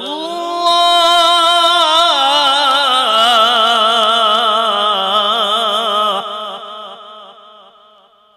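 A male qari reciting the Quran in tajweed style through a microphone, drawing one word out into a long melismatic phrase with a fast wavering vibrato. The pitch glides up at the start and steps down about three seconds in, and the voice fades away from about six seconds.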